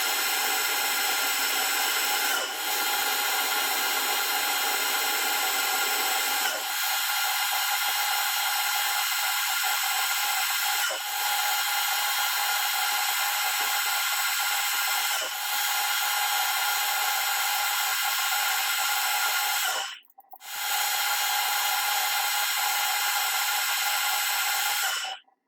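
Metal lathe running while a homemade high-speed steel tool cuts a thread on a steel bolt: a steady whine and hiss, with short dips every few seconds between passes and a brief break about 20 seconds in.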